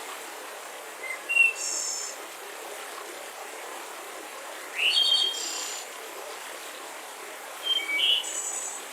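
Forest ambience with wild songbirds calling in three short bursts of high chirps and buzzy notes, over a steady background hiss.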